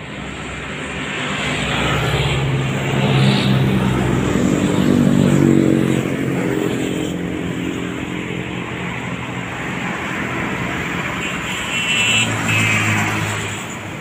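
Road traffic passing on a highway: an engine grows louder and is loudest about three to six seconds in, then fades, and another vehicle passes near the end.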